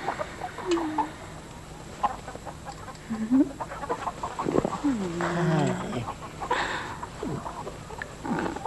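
Chickens clucking: scattered short calls that slide in pitch, with several calls overlapping about five seconds in.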